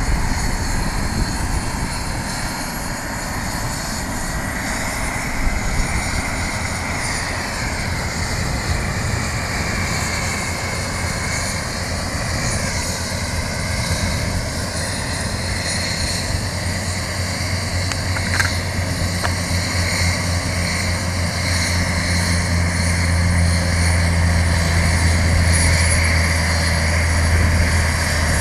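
Turbine helicopters running on the ground: a steady engine whine that dips in pitch twice, over a low hum that grows stronger in the second half.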